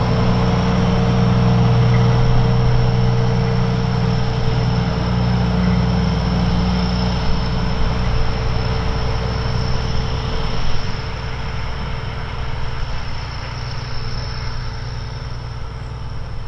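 English Electric 0-6-0 diesel-hydraulic shunter's engine working hard as it pulls a short train away, a deep rumble with a steady high-pitched whine over it. The rumble eases and fades off after about ten seconds as the locomotive draws away.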